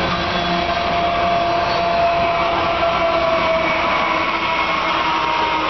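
Loaded coal train rolling past close by: steel wheels running on the rails with a steady rumble and thin ringing wheel tones. A Canadian Pacific GE ES44AC diesel-electric locomotive running as a distributed-power unit passes about four seconds in.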